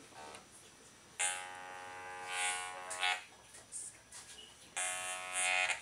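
Electrolarynx (electronic artificial larynx) buzzing in two spells, a steady flat-pitched drone, held against the neck of a man whose larynx has been removed as he tries to shape words with it. The first spell starts about a second in and lasts about two seconds; the second comes near the end.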